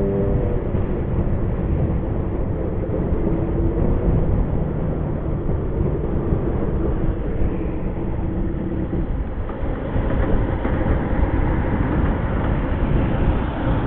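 Kawasaki Zephyr 750's inline-four engine running on the move, mixed with a heavy rush of wind and road noise.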